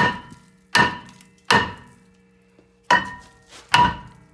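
Five heavy hammer blows on a cast-iron rear brake rotor, each with a ringing clang, with a pause of about a second in the middle: the rotor is being knocked loose from the hub.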